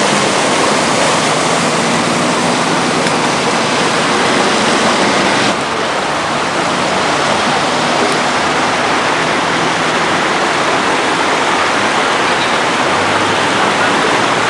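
Floodwater rushing in a loud, steady rush of water. The sound changes abruptly about five and a half seconds in, dropping slightly in level.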